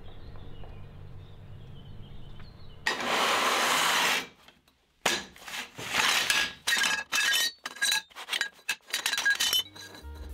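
Lengths of steel square tube clinking and clanking against each other and a steel workbench as they are handled: a quick run of sharp metallic knocks, each with a short ring. About three seconds in, a loud rushing noise lasts just over a second.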